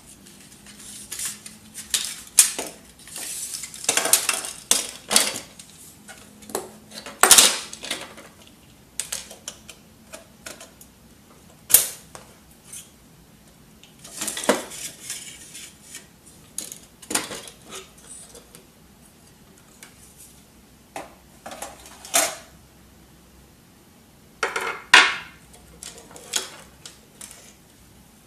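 Plastic and metal parts of an HP F2410 all-in-one printer clicking and clattering as it is taken apart by hand: irregular handling noises with several sharper knocks.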